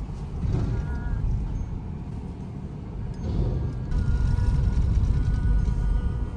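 Low rumble of a car driving slowly through an underground car park, heard from inside the cabin; it grows louder about four seconds in.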